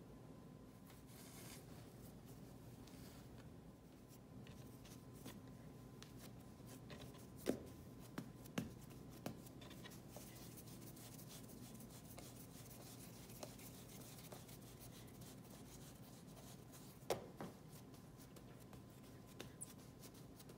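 Faint rubbing and patting of hands shaping and pressing soft pita dough on a floured wooden board. A few light knocks come through, three close together about halfway through and one more later.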